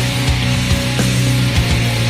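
Loud heavy-metal style rock music with distorted guitars and a driving drum beat.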